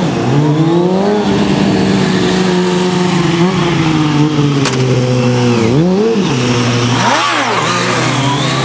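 Sport motorcycle engine revving through wheelie and stoppie stunts: the pitch climbs in the first second and holds high, dips and climbs again about six seconds in, gives a sharp throttle blip about a second later, then settles steady at a lower pitch.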